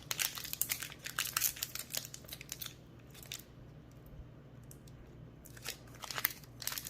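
A foil Pokémon booster pack wrapper crinkling and being torn open by hand, in quick crackles, with a quieter stretch partway through before more crinkling near the end.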